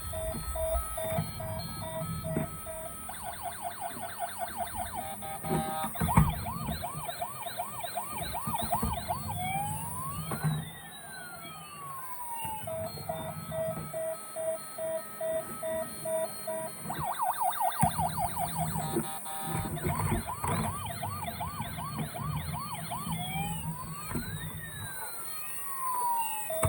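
Electronic siren from a battery-powered toy emergency vehicle, cycling through a steady beeping tone, fast rising yelps and a slow rising-and-falling wail. The sequence starts over about halfway through, with a few knocks beneath it.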